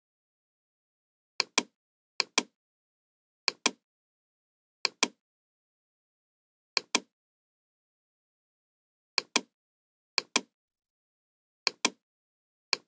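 Computer mouse clicks: nine separate press-and-release double clicks at irregular intervals, with dead silence between them.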